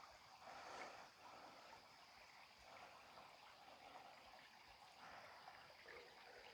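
Faint trickling of a small, shallow stream, the water running unevenly.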